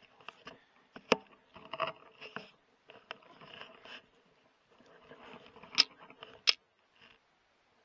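Close rubbing and scraping handling noise in short irregular bouts, with three sharp clicks, the loudest two near the end.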